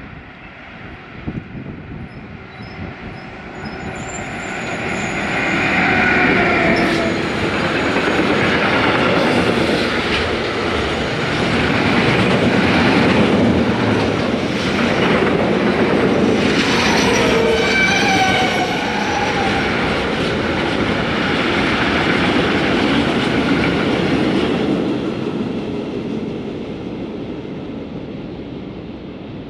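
A freight train of covered sliding-wall wagons passes close by at speed. It grows louder over the first few seconds, rumbles and clatters past for about twenty seconds, and fades away near the end. Brief high squealing tones come about six seconds in and again just past the middle.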